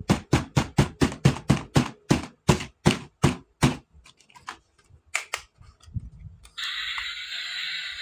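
A quick run of sharp clicks or taps, about four a second, thinning into a few scattered fainter ones. About six and a half seconds in, a steady hissing sound starts and keeps going.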